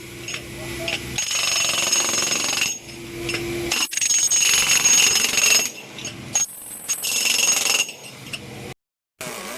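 Vacuum excavator's air system: air rushing with a loud hiss and a high whistle, stopping and restarting several times in spurts. It cuts off suddenly near the end.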